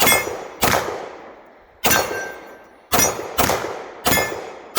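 A string of pistol shots at steel targets, about six, spaced roughly half a second to a second apart, each sharp crack followed by the steel plate ringing as it is hit.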